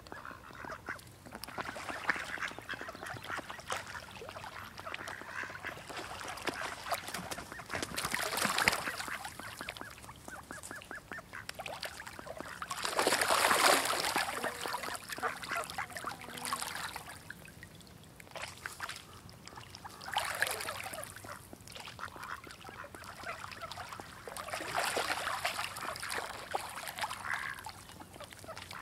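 A hen duck and her ducklings calling: rapid, continuous chatter that swells into several louder bouts.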